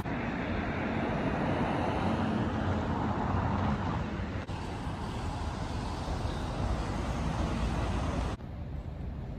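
Steady city road-traffic noise, a rumble of passing vehicles. The sound changes abruptly about halfway through and again near the end, dropping quieter at the last change.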